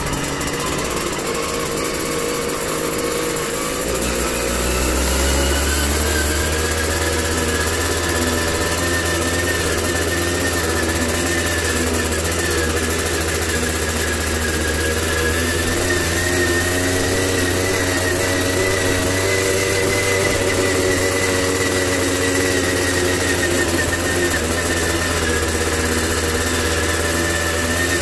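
Tomos CTX 80's 80 cc two-stroke engine running while the moped is ridden. Its pitch rises about four to six seconds in as it picks up speed, then holds fairly steady with slight swells.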